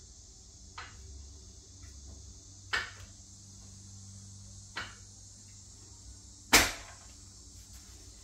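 Four sharp knocks and clacks of metal and plastic, about two seconds apart, as a sliding miter saw is shifted and fitted onto a folding miter saw stand; the last, about six and a half seconds in, is much the loudest. A steady low hum runs underneath.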